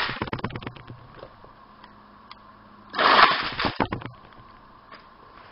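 Homebuilt ROV's electric-motor-driven telescopic spear shooting out and back: a short burst of motor whirr and clattering tube sections about three seconds in, with the tail of another at the very start, each trailing off into a few clicks.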